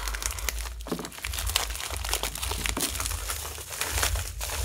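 Plastic courier mailer bag crinkling and rustling as it is opened and handled, with short tearing sounds.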